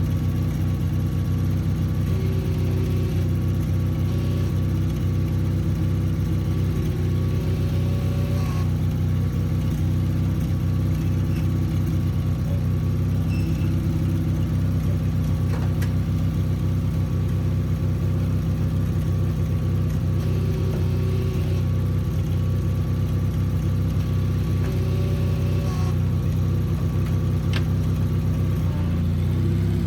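Sears Craftsman FF24 garden tractor's engine running steadily at an even speed.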